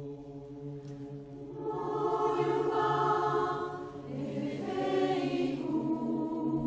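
Large mixed choir of men and women singing a Yoruba chant. A low note is held underneath, and more voices come in louder about a second and a half in, then again after a short dip near the middle.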